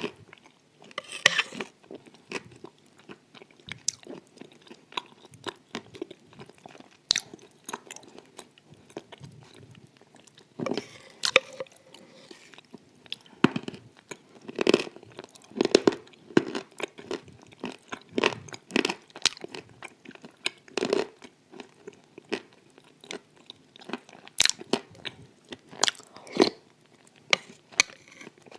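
Close-miked chewing of a mouthful of white clay paste: wet mouth sounds with irregular crunching and crackling bites.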